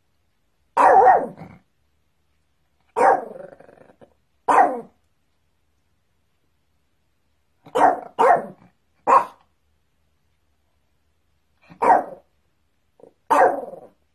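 A dog barking eight times, with silence between barks: three single barks spaced a second or two apart, then three in quick succession, then two more single barks.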